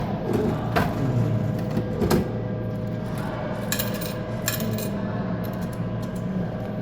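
Soda vending machine in use: a handful of sharp metallic clinks and knocks from coins and a falling soda can, over the machine's steady hum.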